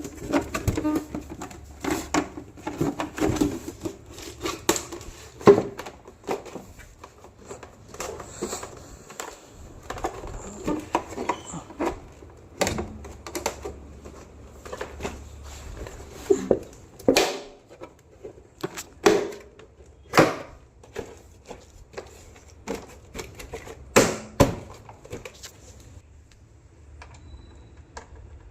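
Irregular clicks and sharp knocks from hands-on repair work on a water heater's parts, with several louder knocks in the second half and a quieter stretch near the end.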